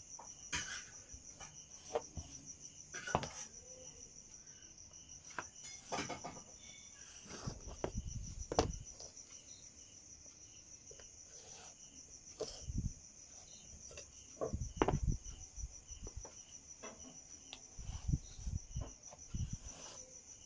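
A cricket trills steadily and high throughout. Over it come scattered knocks, thuds and rubbing as a steel ruler is laid down and shifted on cloth and chalk lines are drawn.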